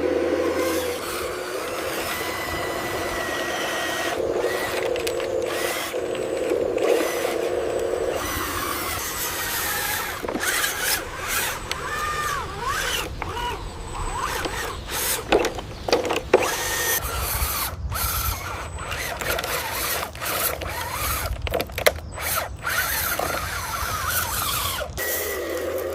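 Small electric motors and gearboxes of RC excavators and an RC bulldozer running, their whine shifting in pitch as the machines move, with sharp clicks and knocks through the second half.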